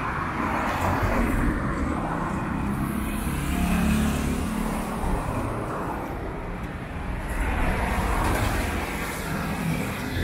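Street traffic: cars passing by one after another, their sound swelling and fading several times over a low engine rumble.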